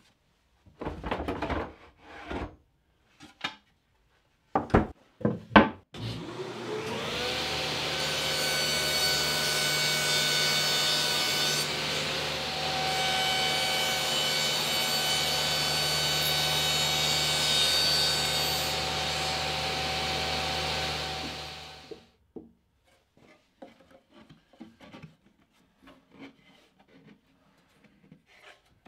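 Pieces of scrap plywood knocking and clattering as they are handled, a few sharp knocks in the first six seconds. Then a table saw's motor spins up with a rising whine, runs steadily for about sixteen seconds, and winds down.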